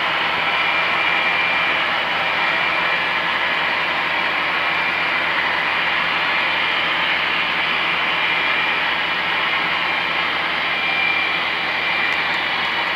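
HO scale coal hopper cars rolling past on curved track: a steady rolling rattle of small metal wheels on rail, with a faint thin high tone coming and going.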